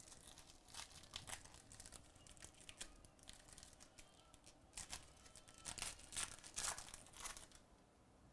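Foil wrapper of a baseball trading-card pack crinkling and tearing as it is ripped open by hand: a run of sharp crackles, loudest over the second half.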